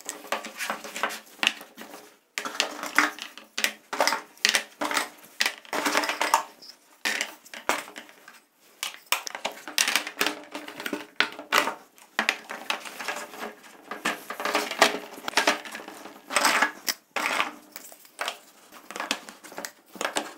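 Hard plastic parts of a stacking shelf rack clicking and knocking as the posts are handled and pushed into the corners of the shelf trays, an uneven clatter of small impacts.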